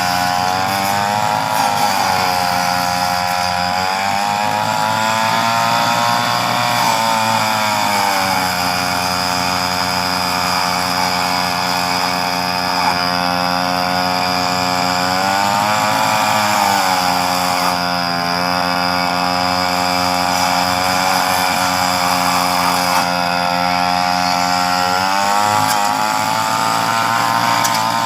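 Chainsaw running at high speed, its pitch sagging and recovering several times as the chain bites into tree branches.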